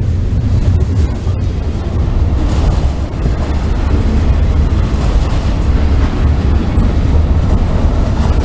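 Freight train cars rolling past at close range: a loud, steady low rumble of steel wheels on the rails.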